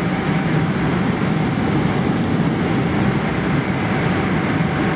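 Steady cabin noise of a Boeing 777-300 airliner in cruise: the even rush of airflow and engines heard from an economy seat, with a faint steady hum running through it.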